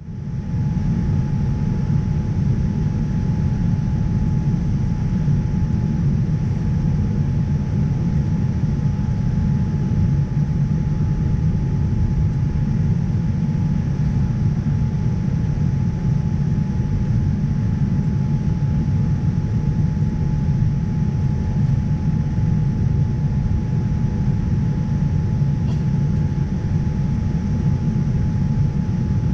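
Steady low rumble of airliner cabin noise on board a Boeing 787-9 in flight, with a thin steady whine above it.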